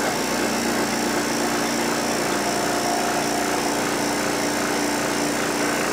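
Electric vacuum pump running with a steady hum, pumping the air out of a glass bell jar to lower the pressure inside.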